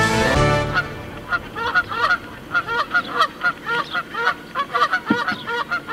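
Background music fades out in the first second, then a flock of birds calls without pause: short arching calls, several a second, overlapping one another.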